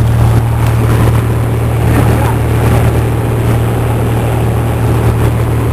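Cessna 172's piston engine and propeller in flight, a loud, steady drone.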